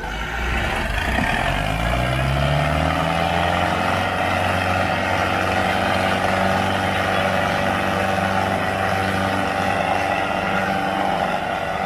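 Two diesel tractor engines, a red Mahindra and a blue tractor, pulling against each other in a tractor tug-of-war. The engines rev up over the first three seconds and then hold a steady, high-revving pull under full load.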